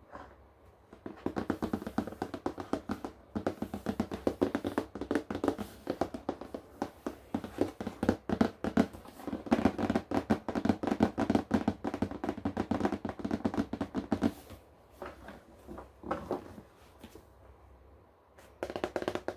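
Fingers tapping fast on a cardboard board-game box, a quick steady patter that thins to a few scattered taps about fourteen seconds in and picks up again near the end.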